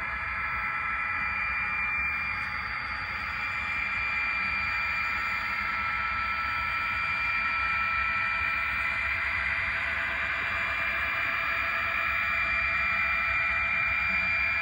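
HO scale model train running on the layout track: a steady whine with hiss and a low rumble, slowly growing a little louder.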